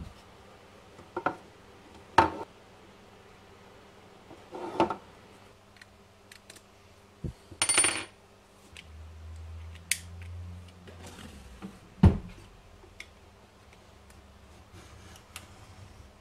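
Workbench handling noises: a hard plastic project enclosure and a steel combination square being picked up and set down on the countertop. They give a string of separate knocks and clicks, the loudest near the start and about twelve seconds in, with a short scraping rustle about eight seconds in.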